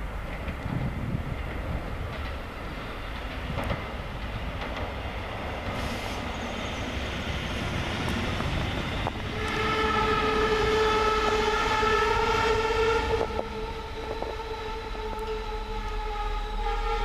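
SA134 diesel railcar running past with a low rumble; about halfway through a steady, high pitched tone of several notes sets in, loudest for about four seconds and then held more faintly.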